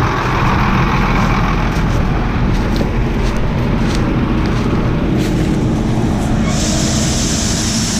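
Heavy farm machinery engine running steadily under load, with a few faint clicks. A steady high hiss joins about two-thirds of the way through.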